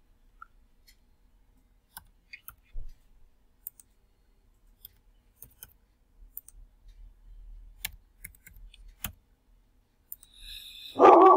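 Scattered computer mouse clicks and a few keyboard keystrokes while figures are typed into a program. A single short, louder bark comes right at the very end.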